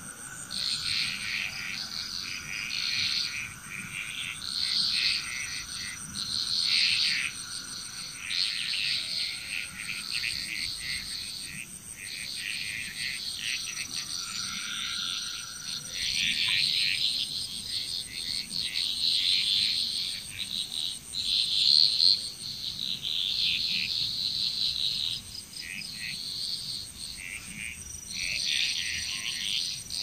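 Chorus of many frogs calling over one another in uneven bouts with brief lulls between them.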